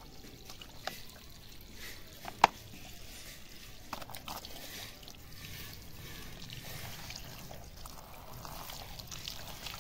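Water pouring and trickling in a muddy puddle, with one sharp click about two and a half seconds in and a few fainter ones.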